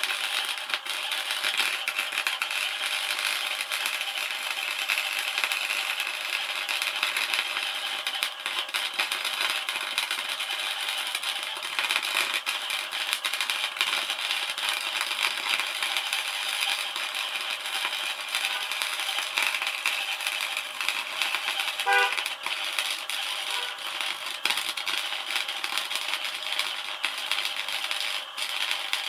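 MIG welder arc crackling steadily and without a break as a weld bead is laid, a dense spatter of fine clicks.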